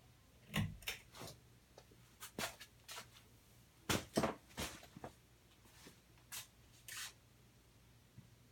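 Hampton Bay Hawkins ceiling fan running in reverse: a faint steady motor hum, with irregular sharp clicks and knocks scattered through it.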